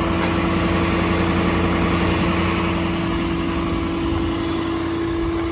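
A Ford 6.7 Power Stroke turbo-diesel V8 idling steadily, with a constant hum.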